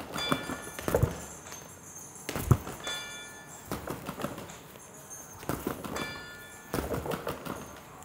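Sneakers thumping and scuffing on a hard floor during shadowboxing footwork, in an uneven rhythm. A short electronic chime sounds three times, about every two and a half seconds.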